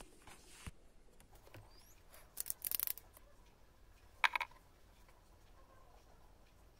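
Light handling noise of makeup items: a few soft clicks, a short burst of quick scratchy rustles about two and a half seconds in, and a sharp click a little after four seconds, as the eyeliner and mascara are picked up and opened.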